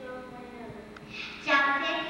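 A child's voice amplified through a stage microphone, faint at first, then a loud line starting about one and a half seconds in.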